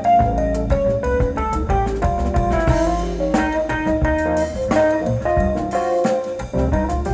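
Instrumental music: a melody stepping from note to note over a drum kit's regular hits.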